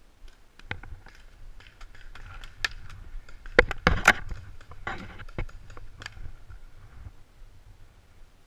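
A paintball player's gear on the move: scattered clicks, rattles and scuffs from the marker and hopper, with a cluster of loud, sharp cracks a little under four seconds in.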